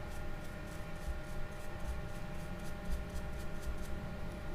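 A small brush scrubbing dried sea-salt crust off a Kenzi Aica spinning reel's handle, giving quick, irregular scratchy strokes, several a second.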